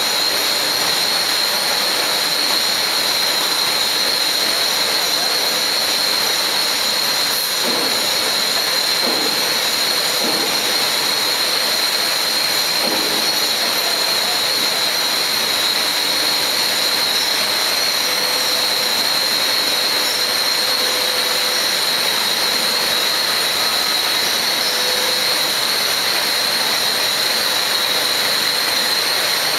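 Billet continuous casting machine running: a steady, loud hiss with a thin high whistle in it.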